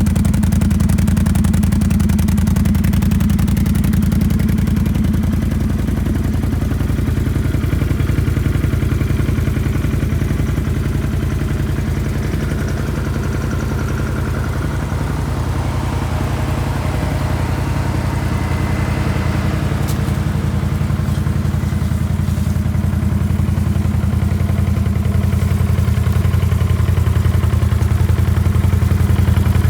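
Can-Am Outlander 650 XMR's Rotax V-twin engine idling steadily once warmed up, with an engine knock that has quieted down and can barely be heard.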